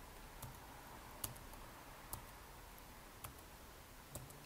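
Faint, slow keystrokes on a computer keyboard while a password is typed: about five separate key presses, roughly a second apart.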